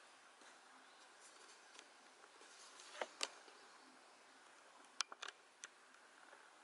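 Near silence: room tone, with a couple of faint sharp clicks about three seconds in and a short cluster of three or four more around five seconds in.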